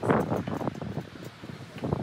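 Wind buffeting the microphone in gusts, strongest in the first half-second and again near the end.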